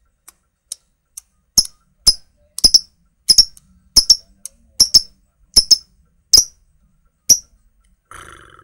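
Lovebird giving short, sharp single chirps, about two a second and sometimes doubled, faint at first and loud from about a second and a half in.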